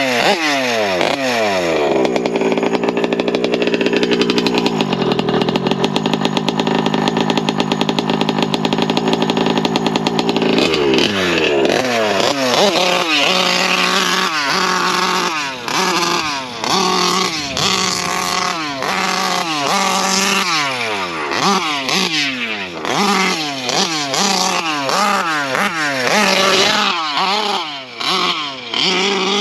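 Taylor RC 55cc two-stroke engine in a Losi 5ive-T 2.0 RC truck running hard. It holds high revs for several seconds early on, then revs up and drops back over and over in short bursts of throttle.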